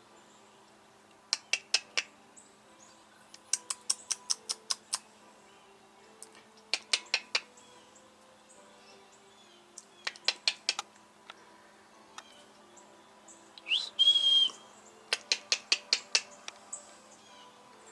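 A bird calling in quick bursts of four to six sharp, high chirps every few seconds, with one short rising whistle near the middle of the stretch.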